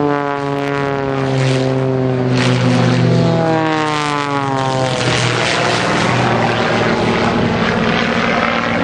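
Aerobatic piston-engined propeller aircraft flying a display pass. Its engine and propeller note falls in pitch as it goes by, twice in the first five seconds, then settles into a rougher, steadier drone.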